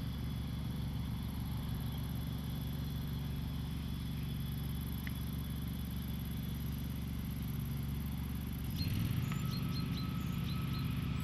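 Steady low hum of outdoor ambience, joined about nine seconds in by short high chirps and a thin steady whine.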